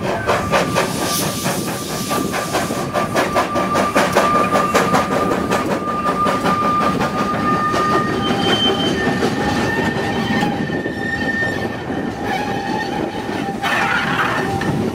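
Narrow-gauge steam train passing close by on curved track: a fast rhythmic clatter with thin steady wheel squeals from the curve, one strong squeal through the first half and others at different pitches later. Near the end, a burst of steam hiss as the locomotive passes.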